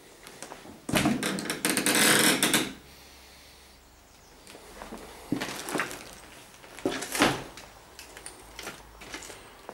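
Knocks and a loud scrape for about two seconds from about a second in, typical of a door, drawer or cupboard being handled, then a few quieter knocks around five and seven seconds in.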